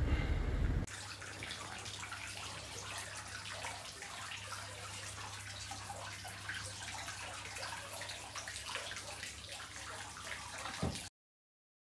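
Wind rumbling on the microphone for about the first second, then hot-spring water splashing and trickling from a wooden spout into a bath, with a steady low hum underneath. It cuts off suddenly near the end.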